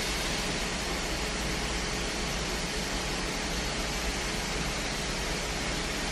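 Steady, even rushing noise with a faint steady hum under it, holding at one level throughout.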